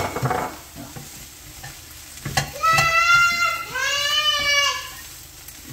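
A wooden spatula scrapes and stirs green beans thoran frying in a wok, over a soft sizzle. About halfway through, two drawn-out high-pitched calls, each about a second long, ring out over it and are the loudest sound.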